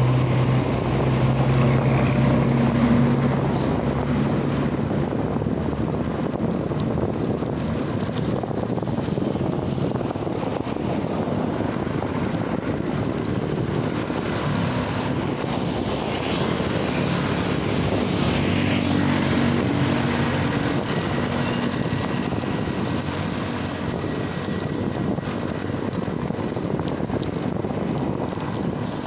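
Motor vehicle engine running with a steady hum, amid wind and road noise while moving along a highway. The engine pitch is strongest in the first few seconds and swells again around two-thirds of the way through.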